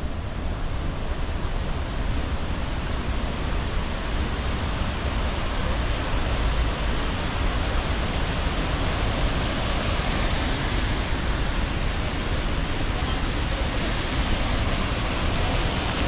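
Steady rushing of a waterfall. It grows louder and hissier about two-thirds of the way through.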